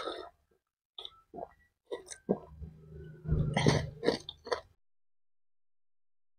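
Close-miked mouth sounds of drinking water: swallows and wet mouth clicks, then a low throaty sound lasting about two seconds, like throat clearing after the drink.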